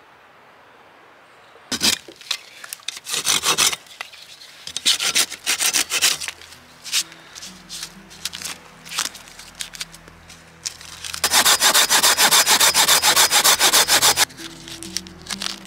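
Hand saw cutting through a thin wooden branch: a few scattered strokes early, then a fast, even run of rapid back-and-forth strokes for about three seconds near the end.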